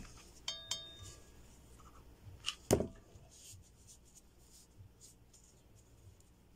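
Quiet handling of craft materials at a work table: a brief ringing clink about half a second in, then a single sharp knock near three seconds in, the loudest sound, as the hot glue gun is set down on the table.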